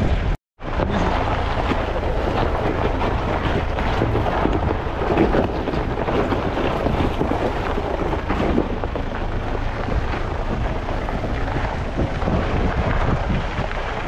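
Off-road vehicle driving on a dirt track, its engine and tyre rumble mixed with a steady rush of wind buffeting the microphone. The sound drops out for a moment just after the start.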